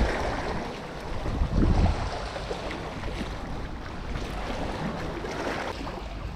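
Small sea waves lapping and splashing against shoreline rocks, with wind on the microphone; a stronger low gust about a second and a half in.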